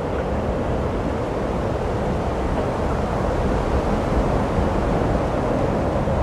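Steady, even rumble of wind and surf.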